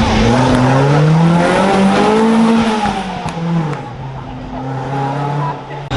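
Historic rally car on a special stage, its engine accelerating hard with the pitch climbing, then dropping about three and a half seconds in as the driver shifts or lifts, and climbing again as the sound gets quieter.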